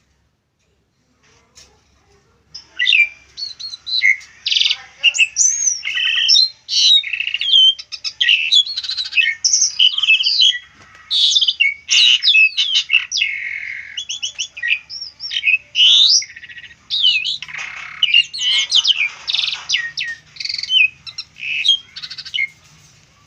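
Asian pied starling singing a long, varied song of whistled glides, quick chattering notes and rattles, starting about two and a half seconds in.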